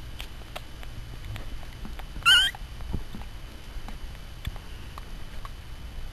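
Newborn puppy giving one short, wavering high-pitched squeal about two seconds in, over faint scattered rustles and clicks from the puppies squirming on the blanket.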